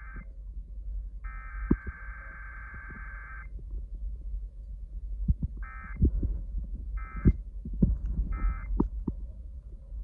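Emergency Alert System SAME header data bursts, a harsh warbling digital screech, played through a smart speaker. One long burst comes about a second in, then three short bursts about a second and a half apart. A low hum and a few sharp thumps run under them.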